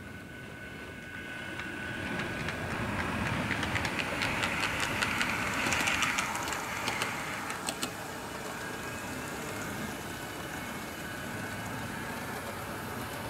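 Bachmann Windhoff MPV model train running past on the track, its motor whirring and its wheels clicking over the rail joints. It grows louder as it comes close, about four to seven seconds in, then fades as it runs away.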